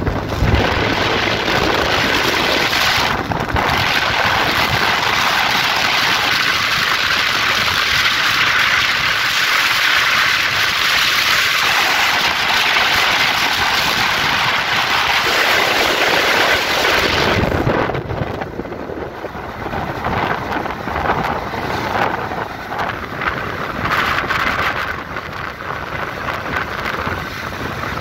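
Loud wind rush over a phone's microphone carried on a moving motorcycle. The rush drops back and turns gustier about two-thirds of the way through.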